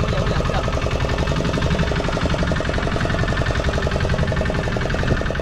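Fishing boat's engine running steadily with a fast, even pulse.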